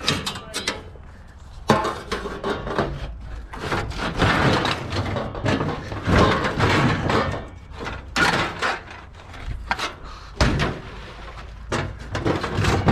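Scrap metal being handled: repeated bangs, clanks and clatters of metal pieces knocking together and being set down, some sharp and loud.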